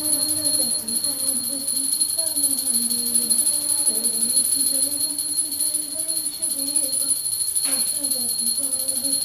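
A voice chanting a prayer in a slow, wavering melody, with a puja hand bell jingling steadily behind it. There is a single click near the end.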